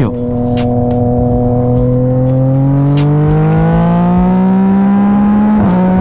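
Naked sport bike engine pulling hard in one gear, its pitch climbing steadily as the revs rise, with a short break about five and a half seconds in, like a quick-shifted gear change. Wind rushing over the helmet microphone underneath.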